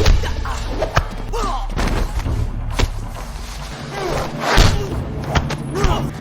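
Action-film fight soundtrack: heavy thuds and impacts, a loud hit about four and a half seconds in, with shouts and grunts over background music.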